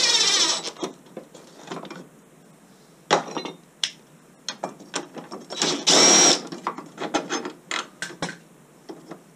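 Cordless drill-driver running in two short bursts, one briefly at the start and another about six seconds in, backing out screws from the mower's plastic wheel-housing plates. Between the bursts come scattered clicks and clinks of screws and plastic parts being handled.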